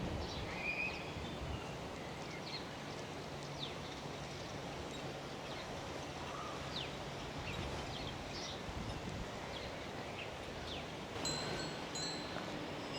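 Outdoor village ambience: a steady background hiss with scattered short bird chirps, and a few thin, high ringing tones that start and stop in the last two seconds.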